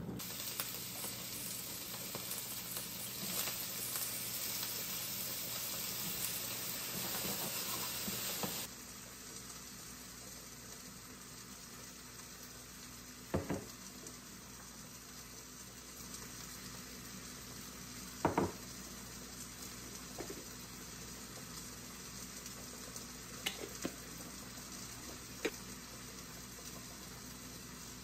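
A steady sizzling hiss from a steaming pan on the stove stops abruptly about eight and a half seconds in. After that come quieter kitchen handling sounds, with a few sharp clinks and knocks of a jar and bowls.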